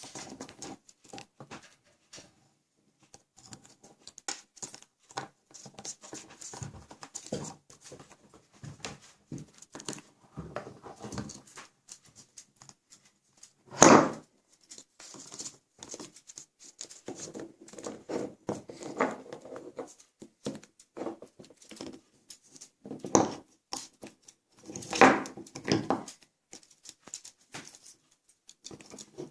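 African grey parrot at play with a toy train: irregular clicking, tapping and scraping, with a few louder sounds about halfway through and near the end.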